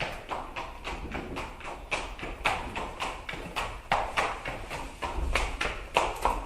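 Horse galloping: a rapid, uneven run of hoofbeats.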